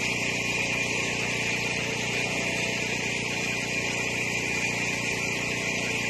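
Steady engine noise running evenly throughout, with no change in pitch or level.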